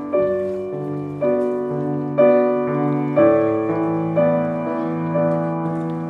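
Slow piano music, with a new chord struck about once a second and left to ring.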